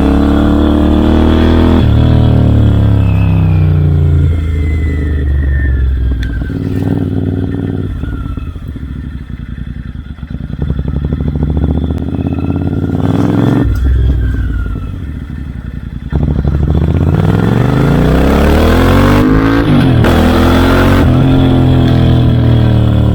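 Royal Enfield Interceptor 650's parallel-twin engine through aftermarket Red Rooster Performance exhausts, ridden through the gears. The note climbs, drops sharply at a shift, falls away slowly and gets quieter in the middle as the throttle eases, then climbs again through further shifts and holds a higher, steady pitch near the end.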